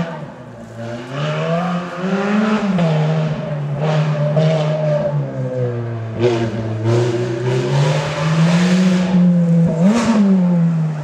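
The Lancia New Stratos's Ferrari-derived V8 driven hard on a rally stage, revving up and dropping back again and again through gear changes and lifts as it approaches, with a few short sharp crackles. The highest rev peak comes near the end.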